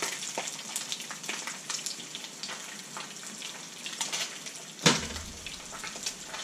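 Breaded silver perch pan-frying in hot oil: a steady sizzle with many small crackles. About five seconds in, a single sharp clank as the metal mesh splatter screen is lifted off the pan.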